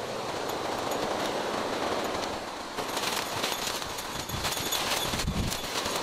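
Dense undergrowth and bamboo grass rustling, crackling and snapping as someone pushes through it on foot, with stems and leaves brushing and breaking close to the microphone. The crackle gets busier about halfway through.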